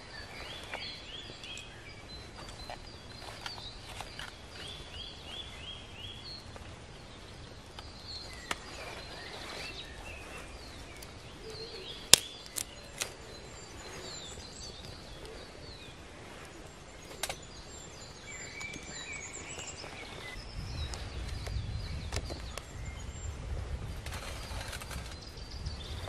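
Small woodland birds singing in repeated phrases of quick descending notes, with a loud sharp snap about twelve seconds in, two lighter snaps just after it, and a low rumble in the last few seconds.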